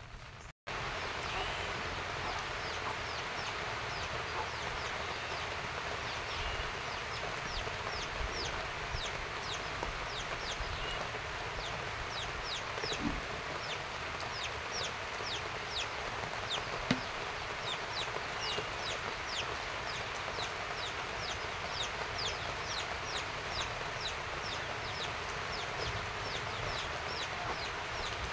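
Chickens calling in many short, high, falling peeps, several a second, over a steady hiss.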